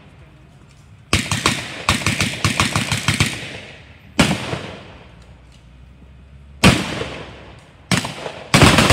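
Blank gunfire in a mock battle: a rapid burst of automatic fire about a second in, then single shots a few seconds apart and another burst near the end, each shot trailing an echo.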